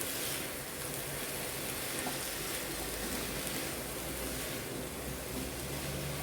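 Brinjal and potato pieces frying in hot oil and masala in a pan, a steady even sizzle.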